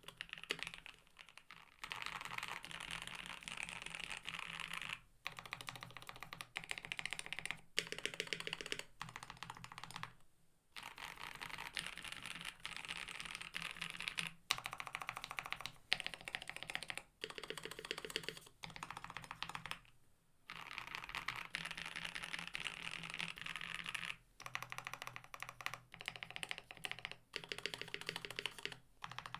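Typing on a KBD67 Lite mechanical keyboard with a polycarbonate plate and silicone mute layer, GMK keycaps and lubed linear switches. The keystrokes come in fast runs of clicks, broken by short pauses every few seconds.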